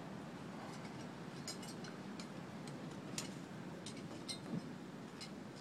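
Faint, scattered metallic clicks and ticks from metal roofing panels and tools being handled during installation, over a steady background hiss.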